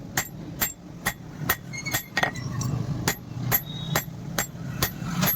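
A hammer striking steel on an anvil in a steady rhythm, about two blows a second with a short metallic ring after each, pausing briefly in the middle; a steady low hum runs underneath.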